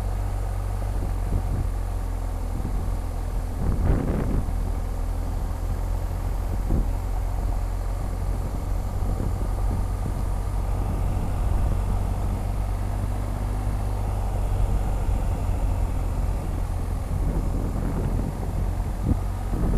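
BMW R1250 GS Adventure's boxer-twin engine running steadily as the motorcycle rides along a gravel road, heard from the rider's camera, with a brief thump about four seconds in.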